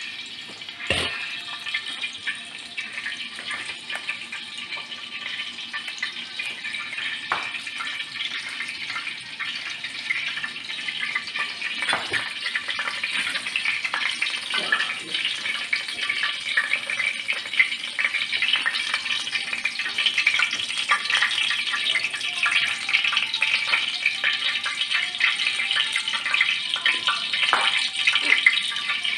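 Food frying in a pan over a gas burner: a steady crackling sizzle that slowly grows louder, with a single knock about a second in.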